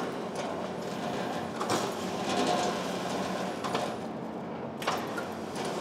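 Marunaka GT-Slider super surfacer running as it planes a board, thin shavings spilling from under the cutter head: a steady machine hum with a few short knocks.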